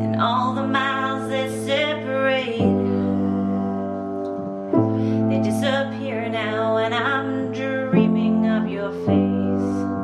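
A woman singing a slow song while accompanying herself on piano, holding each chord for a couple of seconds before moving to the next.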